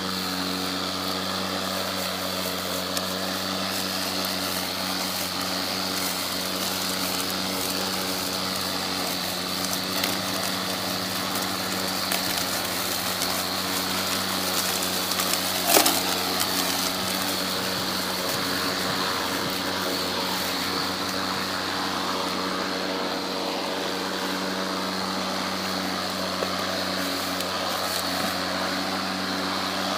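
Ego Power Plus 56-volt battery-powered self-propelled lawn mower running steadily while cutting grass, its electric blade motor giving an even hum. A brief knock about sixteen seconds in, with a fainter one a few seconds before it.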